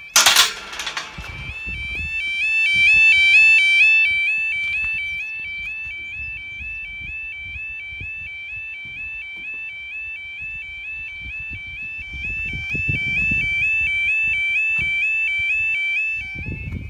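A metal gate latch clanks, then the crossing's red electronic sounder sets off a rapid, warbling alarm that cuts off near the end. It sounds together with the red stop light, warning that a train is approaching.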